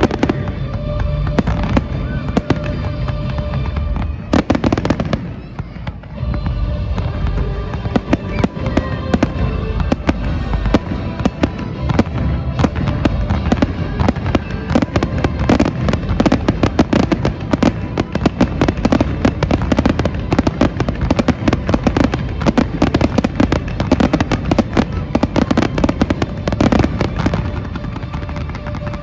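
Fireworks display: bangs and crackles, sparser at first with a brief lull, then thickening into a dense rapid barrage from about twelve seconds in that eases off near the end. Music plays underneath.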